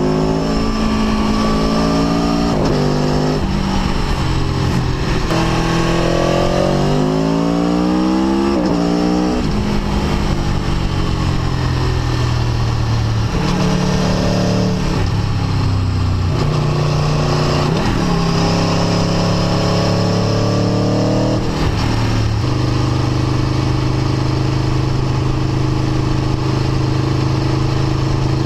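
Aprilia Tuono V4 1100's V4 engine heard from onboard, revving up repeatedly with quick upshifts through the first ten seconds or so, then running at lower, changing revs through the bends, and settling to a steady, even pitch for the last several seconds.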